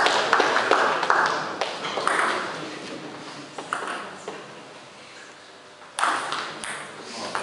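Spectators clapping for the first second or two, then the sharp ticks of a table tennis ball struck by bats and bouncing on the table in a rally. About six seconds in, a sudden loud burst of noise cuts in and fades.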